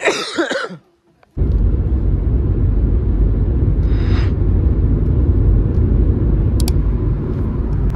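A brief voice, a moment of silence, then from about a second and a half in the steady, loud low rumble of a car on the move.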